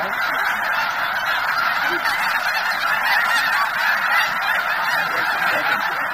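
A large flock of snow geese calling all at once, a dense, steady chorus of many overlapping honks.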